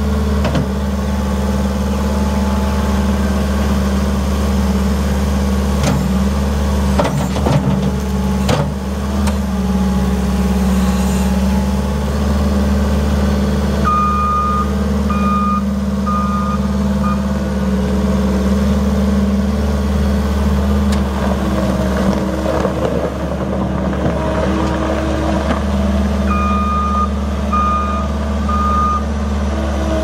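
Case SR175 skid steer's 2.2-litre four-cylinder turbo diesel running steadily as the machine drives about. Its backup alarm beeps in two short runs of about four beeps, about halfway through and again near the end, as it reverses. A few knocks come a little after the start.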